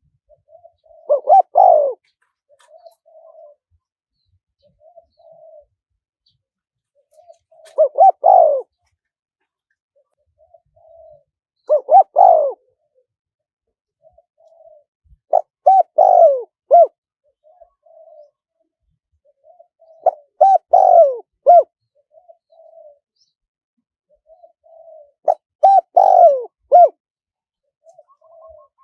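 Spotted dove cooing: six loud, multi-note coo phrases come roughly every four to five seconds, with soft short coos between them.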